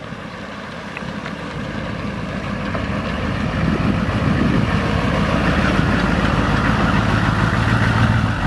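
HMMWV M998 Humvee's diesel V8 engine running as the vehicle drives up and passes close by, growing steadily louder until it is loudest near the end.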